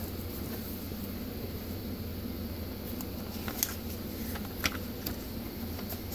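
Steady low room hum, with a few brief soft clicks and rustles as a child handles the paper pages of a picture book.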